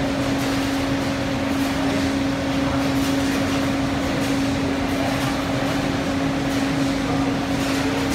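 Large 35 kg drum coffee roaster running: a steady mechanical hum with a constant low tone over an even whoosh of moving air.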